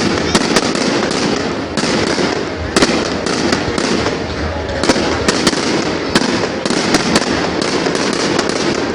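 Fireworks going off in a dense barrage: a continuous crackling hiss with many sharp bangs, several a second.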